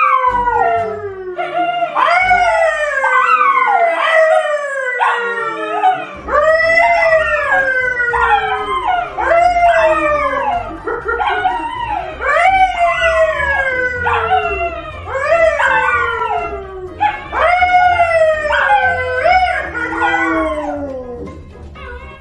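A brown poodle and a man howling together: a string of long howls, each sliding down in pitch, overlapping one another, and dying away near the end.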